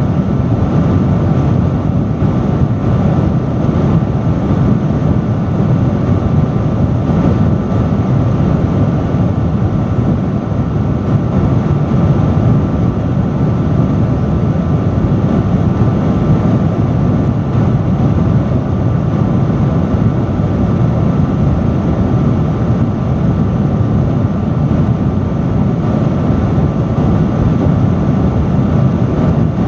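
Industrial fan running steadily: a loud, even rush of moving air with a low drone and a faint steady hum above it.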